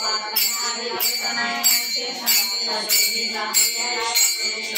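Marathi devotional bhajan: voices singing over small hand cymbals struck in a steady beat about three times a second, their metallic ring carrying between strokes.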